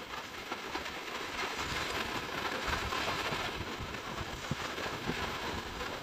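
Small waves breaking and washing up a sandy shore, with a gusty low rumble of wind on the microphone from about half a second in.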